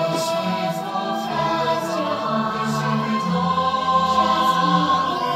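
Fireworks-show soundtrack music with a choir singing long held notes.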